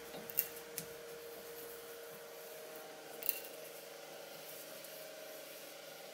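Hand tap in a T-handle tap wrench cutting a thread into an aluminium block: quiet scraping with a couple of sharp clicks near the start and another about three seconds in, over a steady hum.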